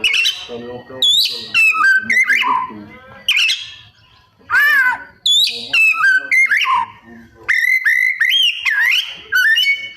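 Oriental magpie-robin (kacer) in full song: a loud, fast run of varied whistled phrases with sweeping glides up and down and quick repeated notes, broken by short pauses. It is delivering its 'isian', phrases mimicked from other birds.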